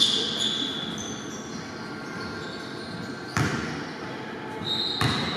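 A basketball bouncing on a gym court, three separate bounces spaced a few seconds apart, with short high squeaks, likely sneakers on the hardwood, and steady gym background noise.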